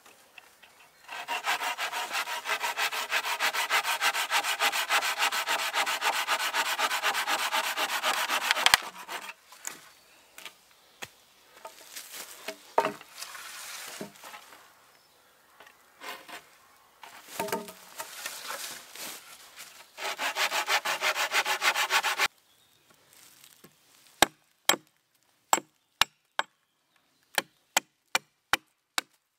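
A folding pruning saw cutting through a wooden pole in fast, even strokes for several seconds, then scattered knocks of poles being handled and a second short burst of sawing. Near the end, about a dozen sharp chops of a hatchet on wood.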